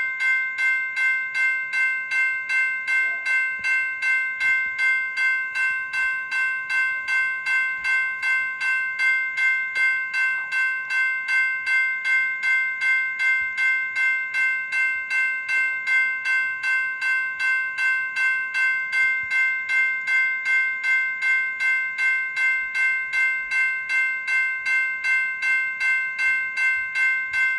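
General Signals Type 2 E-Bell, an electronic railroad crossing bell, ringing continuously at a steady pace of about two strikes a second. Each strike rings with several bright tones that carry over into the next strike.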